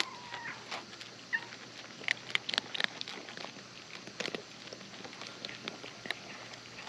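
Cat eating wet food: a run of small, irregular chewing and licking clicks, busiest about two to three seconds in.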